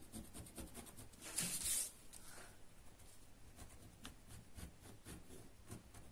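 Faint scratching of a ballpoint pen drawing a curved line on paper, with a louder stroke about a second and a half in.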